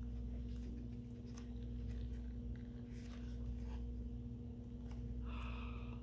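Paper pages of a hardcover book being turned by hand: faint scattered rustles and soft flicks over a steady low hum.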